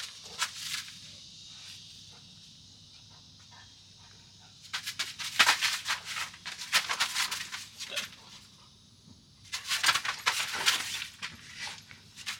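A golden retriever scuffling on a fabric ground mat while tugging and shaking a toy: two bursts of rapid clicks and rustles, the first about five seconds in and the second about ten seconds in.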